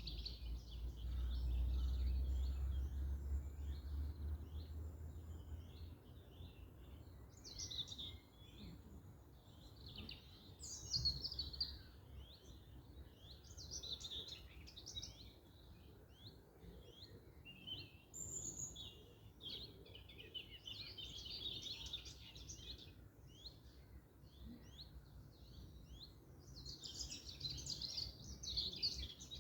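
Small songbirds chirping and singing in overlapping short phrases and trills, with a low rumble during the first six seconds.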